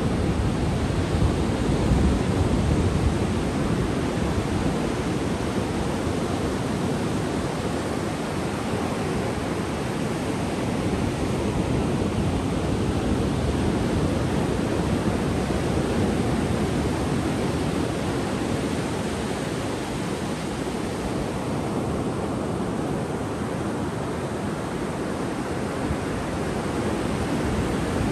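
Ocean surf breaking and washing up a sandy beach: a steady rush of waves that swells and eases slowly.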